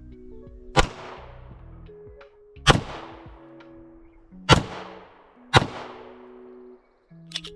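Four single shots from a Bear Creek Arsenal Grizzly 101 9mm pistol, unevenly spaced one to two seconds apart, each with a ringing tail, over background music.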